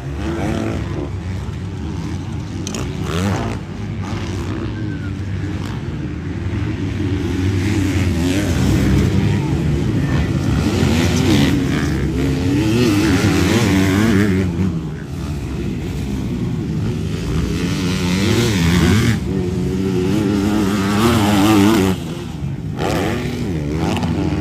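Motocross dirt bikes on the track, their engines revving up and down again and again as they accelerate and brake through the course. The revving is loudest in the middle and about three quarters of the way through, and drops suddenly near the end.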